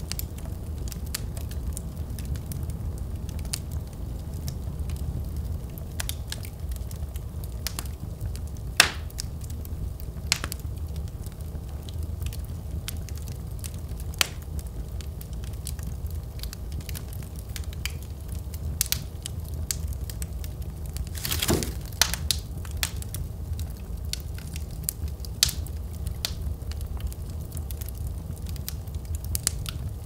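Wood logs burning in an open fireplace: a steady low rumble of flames with scattered crackles and sharp pops. The loudest pop comes about nine seconds in, and a longer burst of crackling comes a little past twenty seconds.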